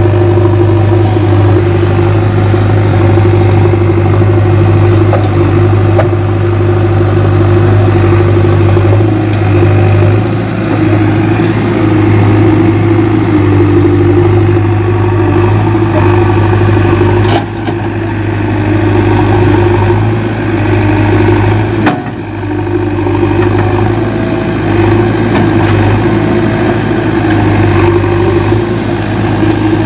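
JCB 3DX backhoe loader's diesel engine running steadily with a low hum while the backhoe digs soil. Twice the sound dips briefly, each time with a short knock.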